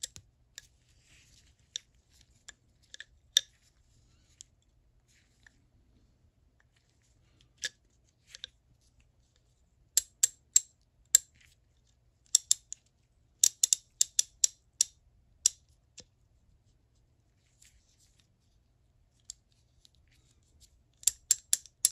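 Pawls of a vintage Billings Vitalloy S-1410 half-inch-drive ratchet clicking over the teeth of its gear as the drive square is turned by hand in the open head, showing the gear engaging the pawls. The clicks come in short quick runs with pauses between them.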